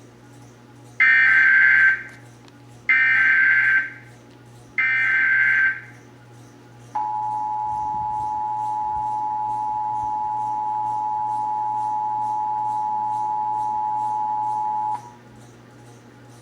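Emergency Alert System test: three rasping data bursts of the SAME digital header, about a second each with a second between them, then the steady two-tone EAS attention signal held for about eight seconds.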